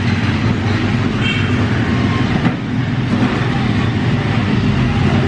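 Electric hair clippers buzzing steadily while shaving a baby's head.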